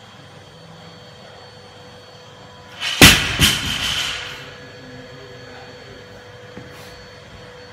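A 200 kg loaded barbell dropped from the top of a deadlift onto rubber gym mats: one loud crash about three seconds in, a second smaller hit as it bounces half a second later, then the plates rattle briefly and settle.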